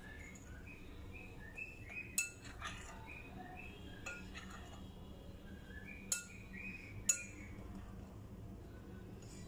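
Metal spoon stirring dry flour in a glass bowl, scraping and knocking against the glass with several sharp clinks.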